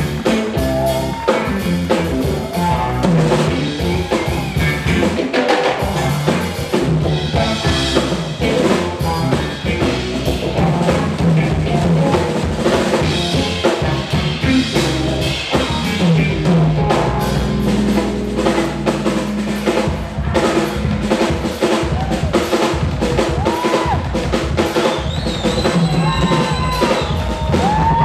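Live instrumental jazz trio of electric guitar, electric upright bass and drum kit playing together, with busy, prominent drums.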